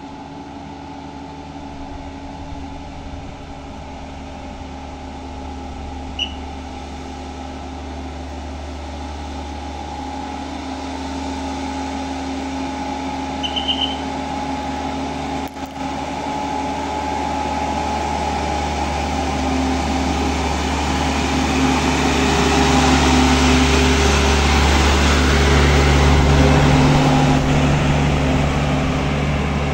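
Loaded diesel dump truck's engine labouring up a steep climb, a steady low drone that grows louder as the truck comes up and passes close by, then eases slightly near the end.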